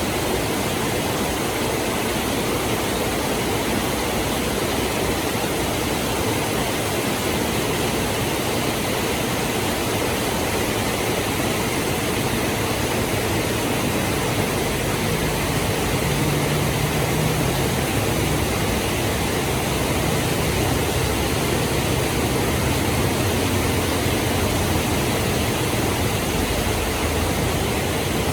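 Heavy rain pouring down in a steady, loud hiss. A low hum joins about halfway through and stays to the end.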